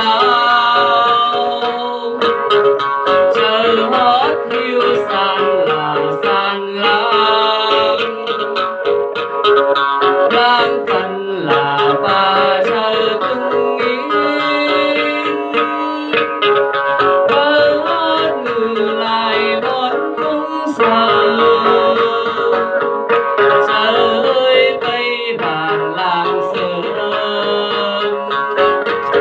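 Dance music led by plucked string instruments, playing continuously at a steady loudness.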